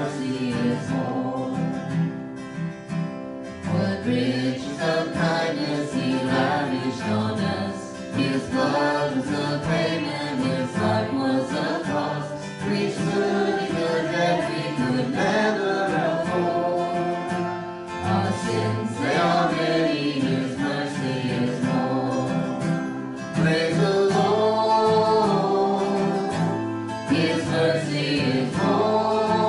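Worship song: a woman singing into a microphone, accompanied by a strummed acoustic guitar.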